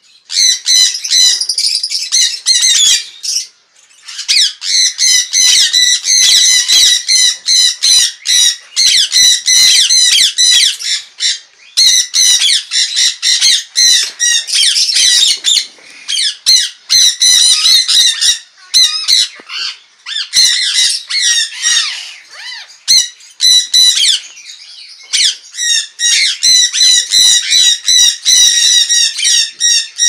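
A flock of jenday conures (Aratinga jandaya) calling together: many shrill, high calls overlapping almost without pause, with a few short lulls.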